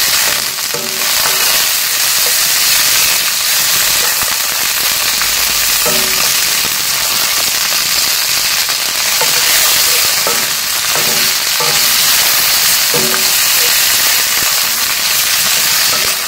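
Sliced bell peppers and onions sizzling in hot oil in a cast-iron skillet, a steady frying hiss, while a wooden spoon stirs them, scraping the pan now and then.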